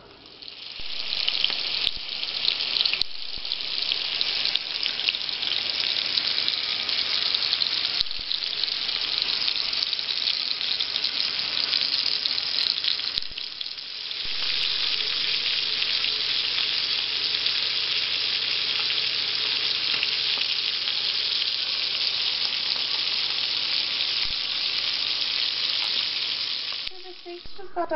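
Two ribeye steaks frying in browned butter and olive oil: a steady sizzling hiss that swells up about a second in, with scattered spitting pops. The sizzle dips briefly about halfway through.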